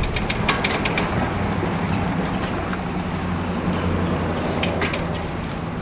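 Boat-trailer winch ratchet clicking rapidly for about the first second, then an engine idling steadily with a low hum; a few sharp clicks come a little before the end.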